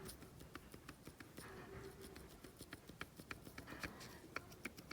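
Faint, irregular clicking of a VW Type 1 1600 engine's number 4 connecting rod and its bearing shells rocked back and forth by hand. The parts are loose against each other: excess play from a rod bearing that seized and burnt up.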